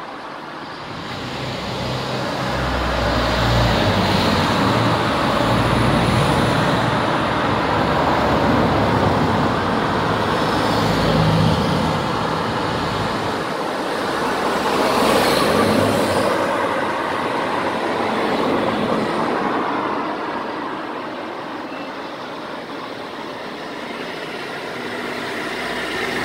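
Road traffic passing close by: a steady rumble and hiss of vehicles that swells over the first few seconds, peaks again about fifteen seconds in, and eases off towards the end.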